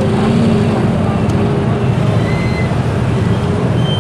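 Steady, loud low rumble of busy street noise, with faint voices mixed in.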